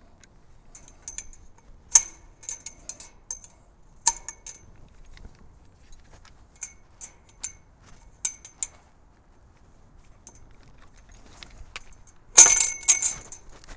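Aluminum twist ties and metal fence wire clinking and rattling in scattered short bursts as the ties are fitted around a fence pole, with a louder, denser rattle lasting under a second near the end.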